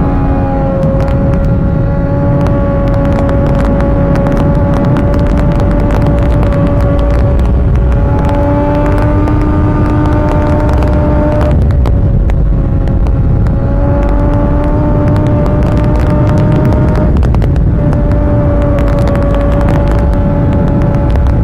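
Triumph Street Triple 675's three-cylinder engine running hard at highway speed, heard from on board the bike with heavy wind rumble on the microphone. The engine note climbs slowly and dips away briefly twice, about twelve and seventeen seconds in.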